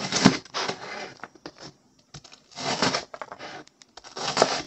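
A chef's knife dices onion slices into small squares on a plastic cutting board, in three runs of quick chopping strokes.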